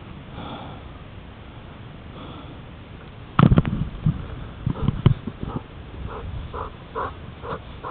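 A dog panting in quick short breaths, about three a second, with sniffing. A few loud knocks close to the microphone come about three and a half seconds in.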